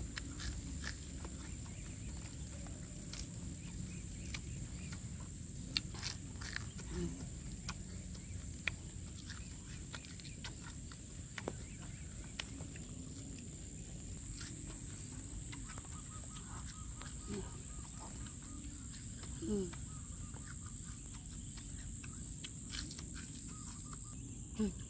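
Chewing of crisp fried grasshoppers, with scattered short crunches and clicks, over a steady high-pitched insect buzz.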